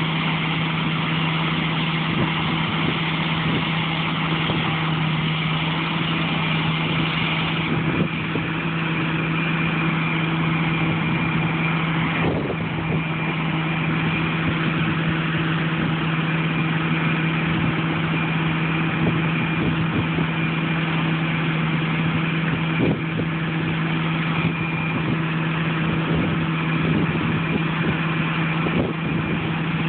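Diesel engine of harvest machinery running steadily at a constant speed: an even, unchanging hum.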